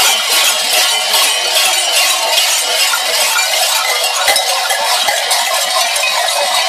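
Many cowbells jangling together without a break, shaken by people in shaggy fur devil (čert) costumes as they move.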